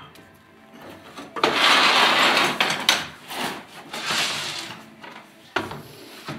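Rubbing and rustling: a loud scrape lasting about a second and a half, then a few softer rubs and a sharp knock near the end.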